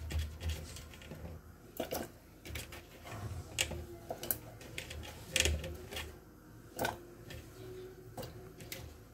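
Water chestnuts dropped by hand into an aluminium pressure cooker of water, giving irregular knocks and clicks as they land.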